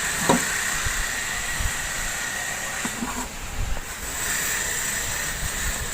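Steady hiss with a few scattered low bumps.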